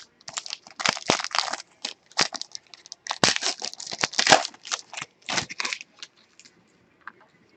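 Wrapper of a pack of football trading cards crinkling and tearing as the pack is opened. It makes irregular crackling bursts, thickest around a second in and again from about three to four and a half seconds, dying away near the end.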